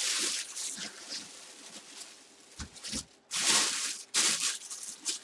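Clear plastic bag around a full-size football helmet crinkling and rustling in several bursts as it is handled, the loudest about three and a half seconds in.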